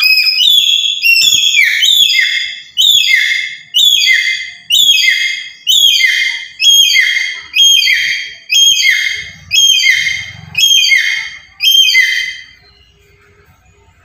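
Black-capped lory calling loudly over and over, about one call a second, each call sliding down in pitch; the calls stop near the end.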